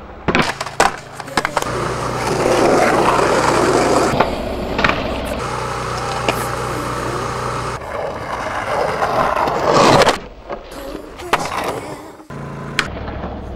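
Skateboard on concrete: the wooden board claps and clacks as it pops and lands, and the wheels and trucks roll and grind with long scraping runs along concrete ledges and curbs, loudest just before the last few clacks.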